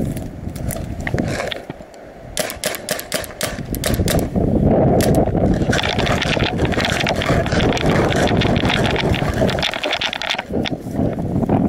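A paintball player running with a head-mounted camera: footsteps and gear rustle as a steady rumble, with a quick string of sharp paintball marker shots about two and a half seconds in.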